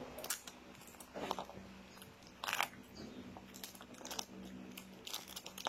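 Packaging being handled and torn open: irregular crinkling and crackling rustles, the longest about halfway through, over a faint steady hum.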